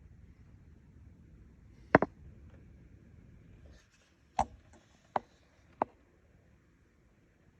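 Four sharp knocks or clicks: a double one about two seconds in, then three single ones a little under a second apart. A low rumble underneath stops shortly before the second knock.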